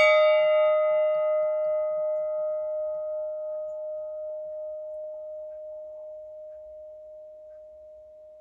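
A struck bell ringing out: one steady, clear tone that slowly fades away with a slight wavering.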